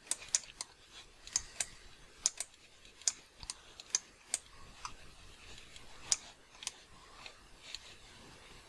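Irregular clicks of a computer mouse and keyboard, about fifteen sharp clicks spread unevenly, some in quick pairs.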